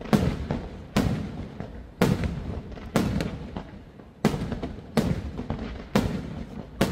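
Aerial firework shells bursting in a steady sequence of about one sharp bang a second, each bang trailing off in a fading rumble before the next.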